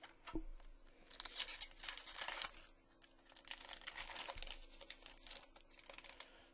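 Wrapper of a 2012 Upper Deck SP Authentic football card pack being torn open and crinkled by hand. The crackling comes in two spells, the second starting about halfway through.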